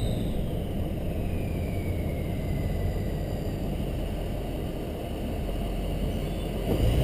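Ford 6.0 Power Stroke V8 turbo-diesel off the throttle: the turbocharger's whistle falls in pitch and fades over the first three seconds, over a steady low rumble from the engine and exhaust.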